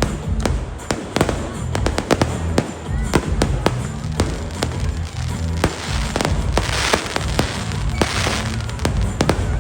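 Aerial fireworks going off: a rapid, irregular string of sharp bangs with hissing crackle bursts about two-thirds of the way in and again near the end, over music playing underneath.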